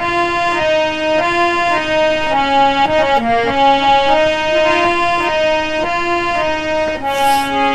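Harmonium playing a bhajan melody on its own, one held note after another, changing about every half second, with no singing.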